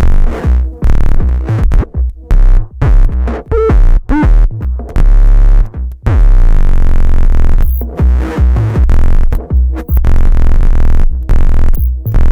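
Gemini CDM-3600 all-in-one DJ unit's output fed back into its own mic input, giving harsh distorted electronic noise: heavy bass tones that stutter and cut in and out, with a brief wobbling squeal about four seconds in and a longer held bass drone around six to seven seconds.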